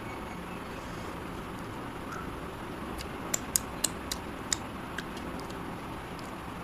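Wet mouth clicks and smacks of a person eating curry with his fingers: a quick run of five or six sharp clicks about three and a half seconds in, over a steady background hiss.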